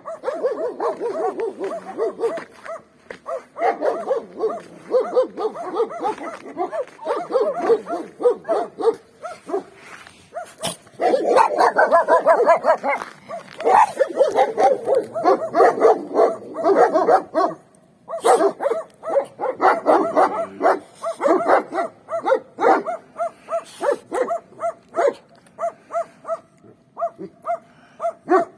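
Several free-range street dogs barking at once in rapid, overlapping barks. After about 23 s the barking thins to sparser, more regular barks.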